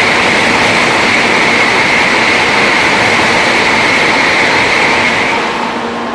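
Tokaido Shinkansen bullet train passing at high speed: a loud, steady rushing noise with a high tone running through it, easing off about five seconds in as the train clears.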